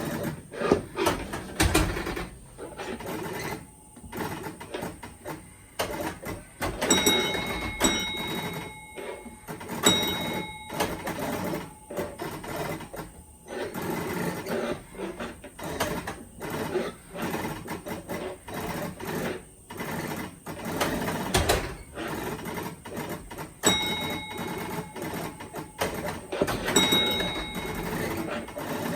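1957 Genco Motorama electromechanical driving arcade game running: its motor and mechanism clatter steadily with many sharp clicks. Short pitched tones sound briefly several times.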